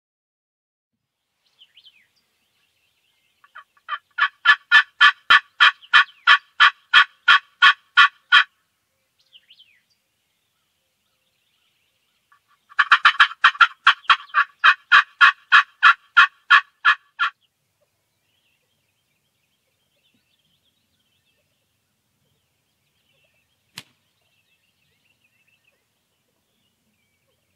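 Hen turkey calling: two long runs of loud yelps at about four a second, the second opening with a quick run of choppy notes, the calling of an irritated hen. One sharp click comes near the end.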